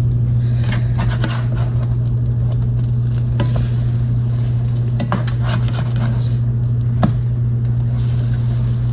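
French toast sizzling in a frying pan while a spatula scrapes and taps against the pan to flip the slices, with several sharp clicks. A steady low hum runs underneath.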